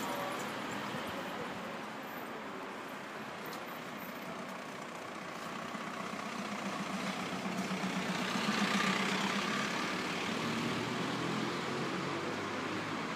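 A car passes close by at low speed. Its engine hum and tyre noise swell to a peak a little past halfway through, then fade. Steady city street noise runs underneath.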